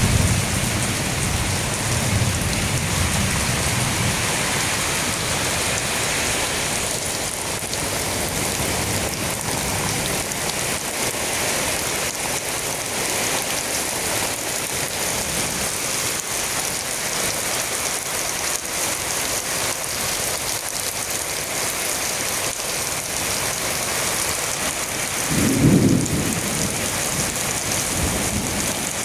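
Steady heavy rain in a thunderstorm, with low thunder rumbling through roughly the first ten seconds and a short, louder low boom about three seconds before the end.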